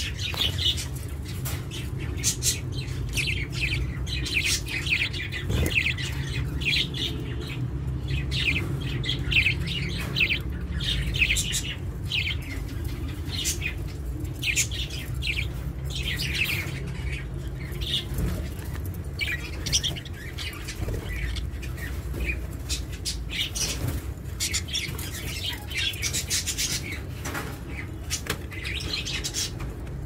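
Budgies chirping and chattering in quick runs of short, high chirps, over a steady low hum.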